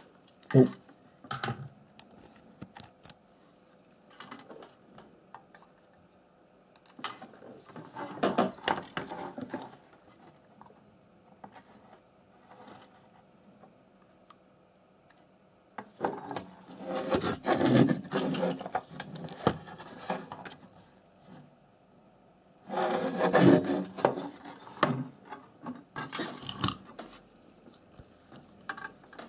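Hands rubbing and handling a circuit board and IC socket during soldering, in three bursts of scraping noise of a few seconds each, with small clicks between them.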